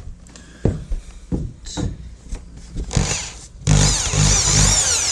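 A few knocks and clicks of wood and tool being handled, then a power drill boring into a wooden roof batten: a short burst about three seconds in, then a longer run of about a second and a half near the end, its motor pitch wavering under load.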